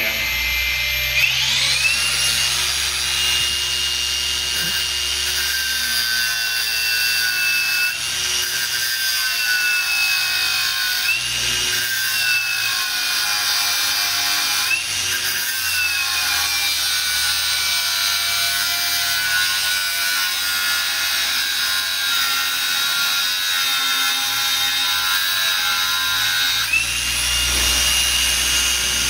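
Cordless brushless angle grinder cutting into the old steel seal ring on a truck flywheel, a steady high whine over a grinding hiss. The whine climbs as the disc spins up about a second in, sags briefly in pitch a few times as the disc bites into the steel, and drops and climbs again near the end.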